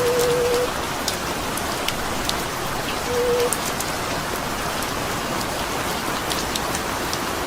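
Steady rain falling, with scattered sharp drop ticks over an even hiss. A short held musical note dies away in the first second, and another sounds briefly about three seconds in.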